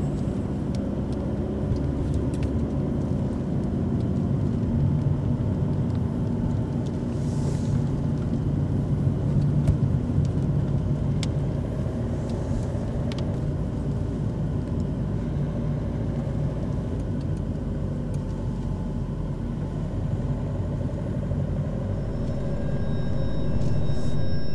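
A car driving along at a steady speed, heard from inside the cabin: an even rumble of engine and road noise.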